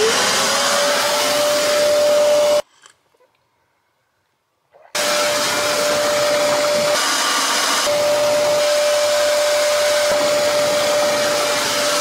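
Wet-and-dry vacuum cleaner switched on, its motor spinning up to a steady high whine with strong suction hiss as it sucks leaked water out of a boat's bilge. It stops abruptly about two and a half seconds in and starts again just as abruptly about two seconds later.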